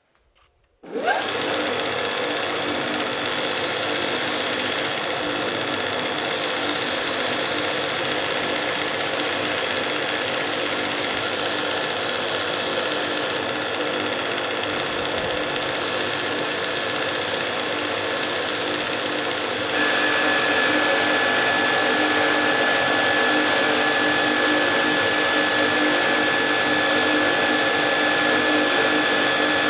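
An electric power tool starts up about a second in and runs steadily. Its high hiss drops out briefly twice. About twenty seconds in it gets a little louder and a steady high whine appears.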